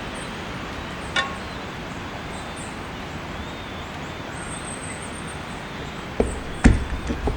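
Steady background noise with no clear source, like outdoor traffic ambience. A single sharp click comes about a second in, and several knocks follow near the end.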